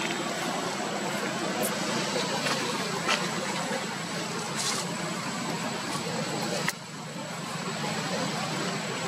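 Steady background noise of a motor vehicle's engine running and road traffic, with a few faint clicks.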